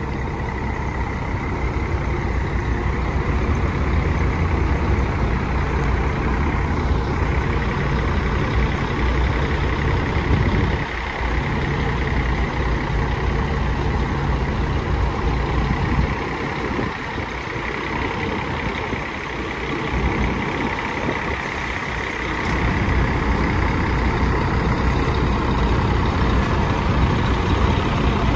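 Diesel intercity coach engines running steadily as a double-decker coach pulls in to the platform: a low engine rumble with a steady high whine above it.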